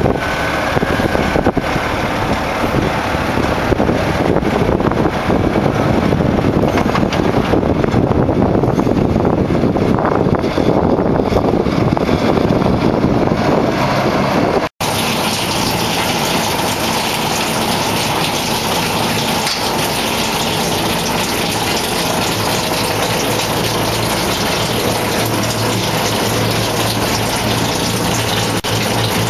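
Steady rushing wind noise on the microphone over a parked truck's diesel engine running. A low, steady hum stands out near the end.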